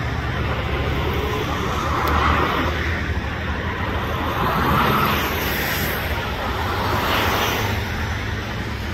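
Street traffic: a steady low rumble of road noise, with vehicles swelling past about two, five and seven seconds in.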